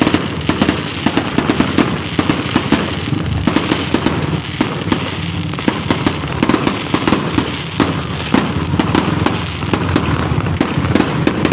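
Fireworks going off in a dense, irregular string of sharp bangs and crackles, one after another with no pause.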